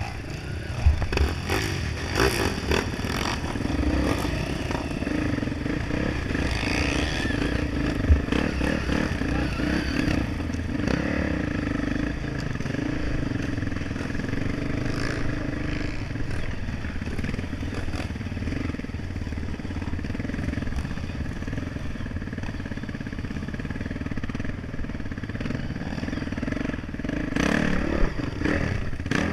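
Off-road motorcycle engine running at low trail speed, heard from on board the bike, with knocks and rattles from the bike over rough ground.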